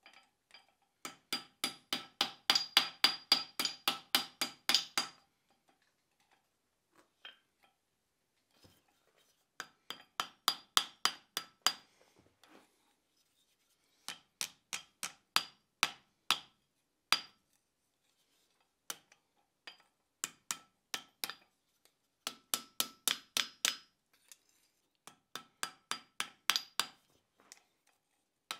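Blacksmith's hand hammer striking red-hot steel set on a bottom tool in the anvil's hardy hole, in quick runs of ringing blows about four a second, broken by short pauses.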